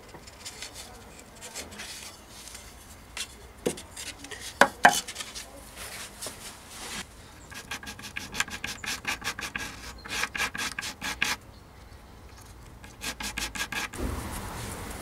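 Small wooden parts rubbed by hand on sheets of sandpaper, making a scratchy rasp. The strokes come in quick runs of about five a second, and a few sharper knocks sound around four to five seconds in.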